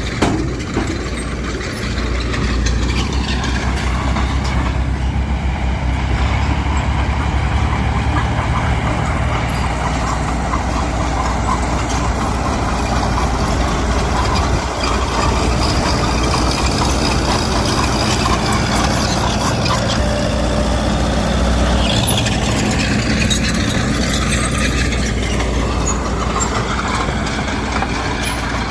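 Heavy diesel earthmoving machinery running steadily, with the pitch shifting for a few seconds about two-thirds of the way through.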